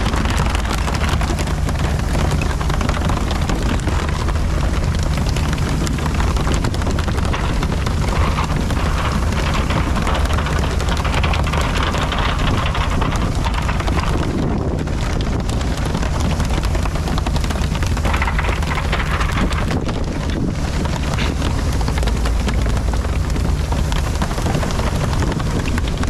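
Fishing boat's engine running steadily, under wind on the microphone and the hiss of water spraying and splashing on the sea surface.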